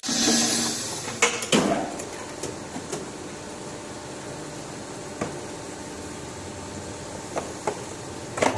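Plastic blow-molding machinery running steadily, with a loud rush of noise in the first second that fades away. Over the hum come scattered sharp clicks and knocks of molded plastic being trimmed and handled, a double knock near the end.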